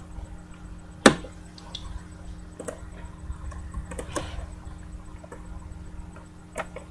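Clicks and taps of things being handled on a table: one sharp click about a second in, then a few softer ones, over a steady low hum.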